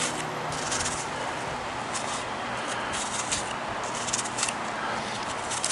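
A paring knife cutting into a peeled apple held in the hand, a few short crisp cuts, over the steady rush of river water.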